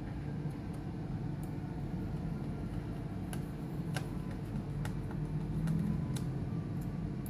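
A steady low hum with about half a dozen small, sharp clicks and taps scattered through the middle and later part: tools and small parts being handled during a laptop teardown.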